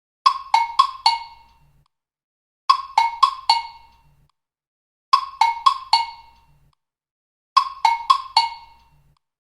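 TikTok ringtone: a phrase of four quick, evenly spaced pitched notes, the last one ringing a little longer. The phrase plays four times, about every two and a half seconds, with silence between.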